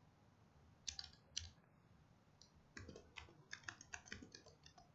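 Faint computer keyboard typing as a password is entered: a few keystrokes about a second in, then a quicker run of a dozen or so from about three seconds in until near the end.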